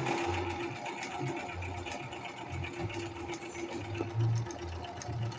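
Milenio metal-frame household sewing machine sewing a zigzag stitch on denim. It runs steadily and smoothly, with a fast, even ticking of needle strokes over the hum of its motor.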